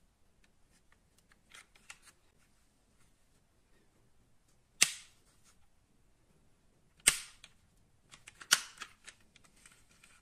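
Three sharp plastic clicks from a toy die-cast rocket-launcher truck as its launcher tubes are tilted up and back down, with faint handling ticks in between.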